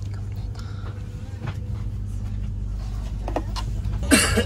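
Steady low hum and rumble inside a Eurostar train carriage, with faint clicks and rustles over it. A short, louder burst comes near the end.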